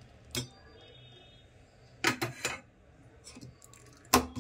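Clinks and knocks of cups and kitchen utensils while tea is served. One comes about half a second in and rings briefly, three come in quick succession around two seconds in, and a louder one comes near the end.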